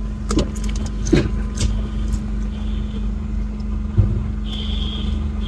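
Fire engine idling with a steady low hum, with a few short knocks. Near the end a high-pitched fire alarm sounds in on-and-off beeps.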